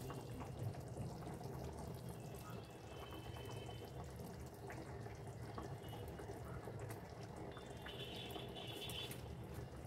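Thin curry gravy simmering in a kadai: faint bubbling and popping over a low steady hum, with a few faint soft knocks as fried cabbage patties are laid into it.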